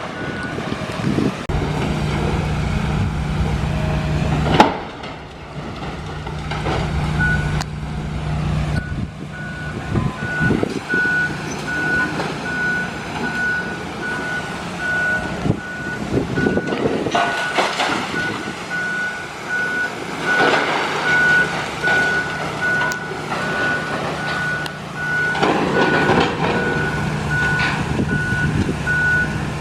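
Demolition heavy equipment at work: a diesel engine runs steadily, and from about seven seconds in its reversing alarm beeps over and over. Crashes of demolition debris break through, the loudest about four and a half seconds in.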